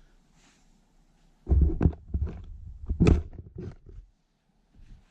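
A run of clunks and knocks of small objects being picked up and set down on a workbench, in two clusters about a second and a half and three seconds in.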